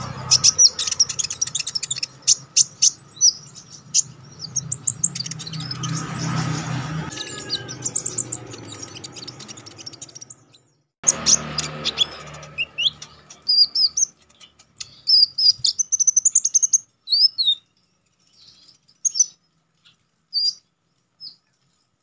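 Male crimson sunbird singing: rapid runs of sharp, high chirps and quick up-and-down whistled notes, thinning to scattered single notes in the last few seconds. A low hum lies under the first half and cuts off about ten seconds in.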